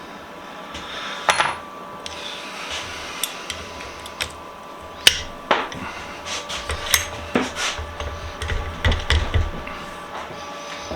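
Hammer tapping a small pin punch to drive a stuck pin out of a small bench vise: sharp metallic taps at irregular intervals, the hardest one about five seconds in.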